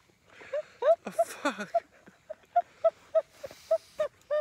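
A woman laughing hard: a run of short, rhythmic "ha" pulses, about three a second, broken by breathy gasps.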